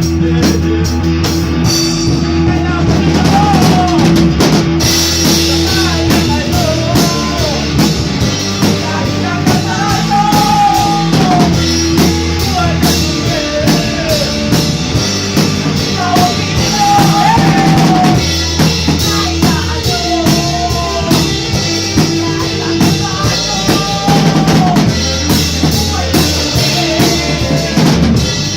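Band playing a rock jam: a drum kit keeping the beat under held bass notes, with a lead melody of bending, sliding notes over the top.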